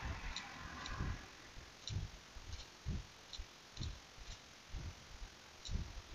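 Computer mouse button clicking: about eight faint single clicks at uneven intervals of roughly half a second to a second, as points of a curve are placed. Dull low thumps come in between.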